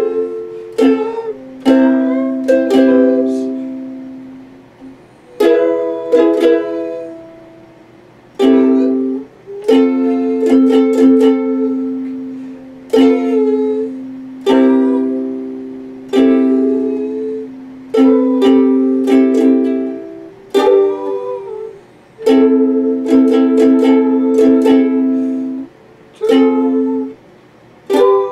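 Ukulele strummed in chords, each strum left ringing and dying away before the next, with short pauses between phrases.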